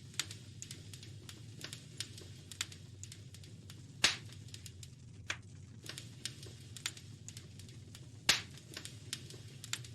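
Wood fire crackling in a fireplace: irregular small snaps and pops over a low steady rumble, with two louder pops about four and eight seconds in.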